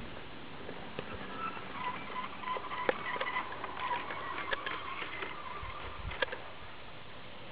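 Wheels of a Playmobil garden-railway works train clicking irregularly over the rail joints as it runs along the track, with birds chirping, busiest in the middle.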